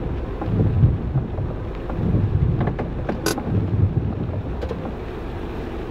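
Rainstorm: a low rumbling noise that swells and eases, with scattered sharp clicks, one louder about three seconds in.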